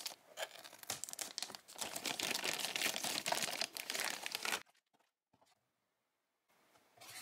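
Thin plastic bag crinkling and rustling as it is worked off a small boxed toy, with dense crackles. It stops suddenly about four and a half seconds in, leaving near silence.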